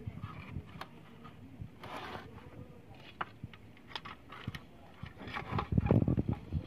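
Handling noise from a lamp's metal reflector being picked up and turned: scattered light clicks and a short rub, with a louder cluster of knocks near the end.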